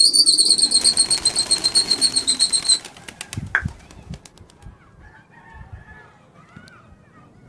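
A shrill whistle trilling for nearly three seconds while a flock of pigeons takes off in a clatter of flapping wings. A few low thumps follow about three and a half seconds in, then only faint bird chirps.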